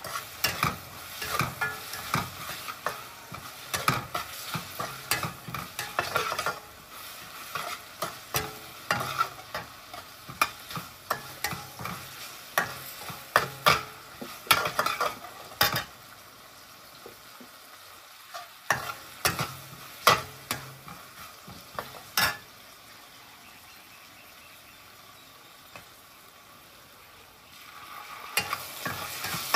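Metal spatula scraping and clacking against a stainless steel wok as meat is stir-fried, over a steady sizzle. The strokes stop about three-quarters of the way through, and near the end the sizzle grows louder as sauce is poured into the hot wok.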